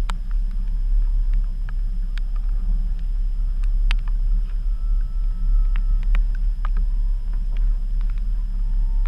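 Steady low rumble of a boat's outboard motor running, with a few light clicks and knocks of gear being handled on board.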